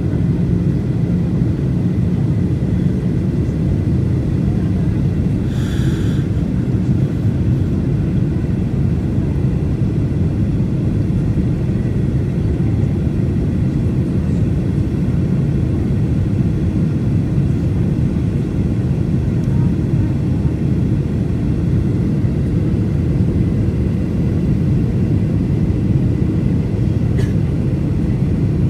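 Inside an airliner cabin during the descent, the turbofan engines and rushing airflow make a loud, steady low rumble with a faint steady high whine. A short higher-pitched sound comes about six seconds in.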